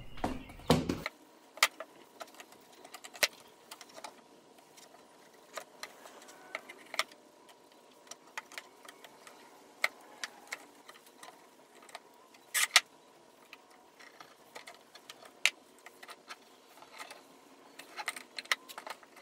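Scattered light clicks and clacks of Jet parallel clamps being handled, the clamp heads knocking on their steel bars, with a rag rubbing paste wax along the bars; a few sharper clacks stand out.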